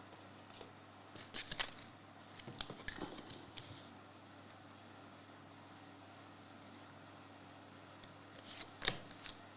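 Quiet, scattered scraping and clicking of hard plastic graded-card cases being handled and slid about, in short clusters from about one to four seconds in and again near the end.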